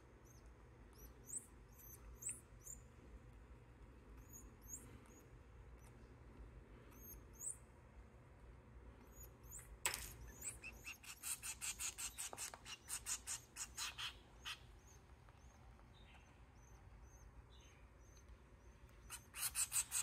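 Nestling finch chicks giving thin, high-pitched begging calls as they are hand-fed: scattered single cheeps at first, then a rapid run of calls starting about halfway through and lasting some four seconds, and another quick run near the end.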